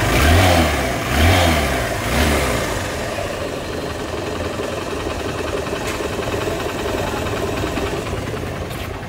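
Hero Honda CBZ Xtreme's 150 cc single-cylinder four-stroke engine is blipped three times, then idles steadily. It is running OK with its new timing chain fitted.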